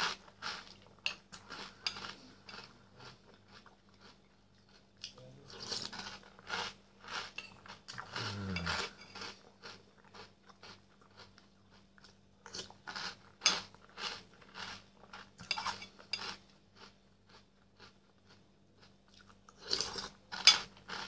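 Close-up chewing of Nesquik chocolate cereal balls in milk: crisp, crunchy bites in clusters, with short pauses between mouthfuls.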